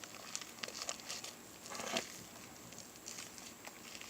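Faint sticky clicks and crackles of homemade slime being stirred and worked by hand, with a slightly louder squish a little before the halfway point.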